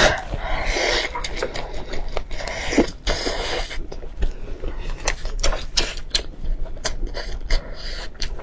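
Close-miked eating sounds: wet chewing with many quick mouth clicks and smacks, and longer noisy slurp-like stretches near the start and about three seconds in.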